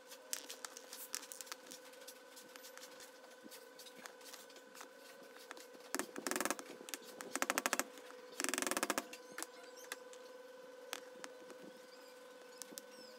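Small metal RC differential parts (bevel gears, a steel shaft, the housing) clicking and tapping as they are handled and fitted together. About halfway through come three short bursts of rapid ticking, under a faint steady hum.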